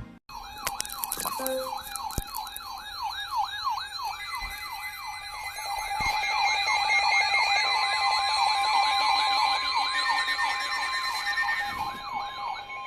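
Electronic emergency sirens in yelp mode: a fast rise-and-fall repeating about three times a second, with a second, higher siren wavering more slowly over it.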